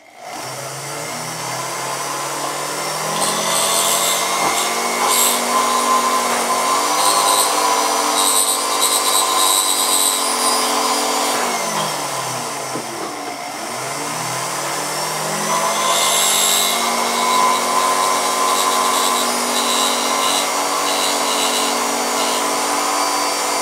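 Small drill press motor running, spinning a wax burr that mills a straight-sided stone seat into a block of green carving wax, with stretches of hissy cutting noise as the burr bites into the wax. About halfway through the motor winds down and spins back up.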